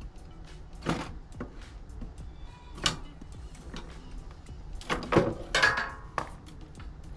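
Knocks and clatter of wooden rod pieces and tools being handled on a workbench: single knocks about one and three seconds in, and a louder cluster with a short ring about five seconds in. Background music plays underneath.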